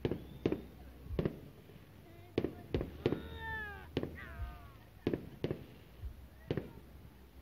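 Fireworks going off: about ten sharp bangs at irregular intervals, with two falling, whistle-like glides about three and four seconds in.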